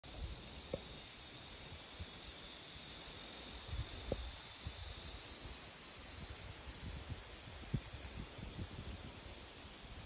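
Cicadas singing in the trees as a steady high-pitched drone, with a few soft low thumps scattered through it.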